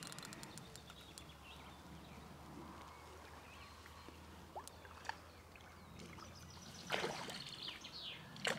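Hooked carp splashing at the surface of the pond as it is played on the rod: two short splashes near the end, over a faint background with a few small ticks.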